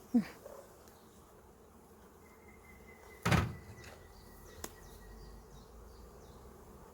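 Honeybees buzzing faintly around the hives, broken by a short thump at the start and a sharp wooden knock about three seconds in, with a small click a little after.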